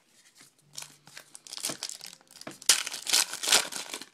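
Crinkling and tearing of a trading-card pack's wrapper as it is torn open and crumpled by hand, loudest and busiest near the end.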